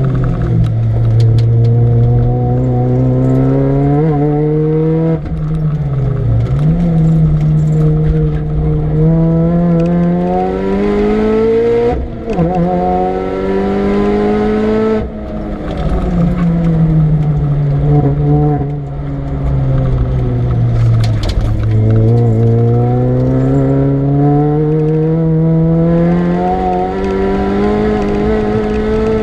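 Supercharged Mini Cooper R53 four-cylinder engine driven hard on track. Its pitch climbs through the gears with sharp drops at each upshift, sinks as the car slows about halfway through, then climbs again through the gears near the end.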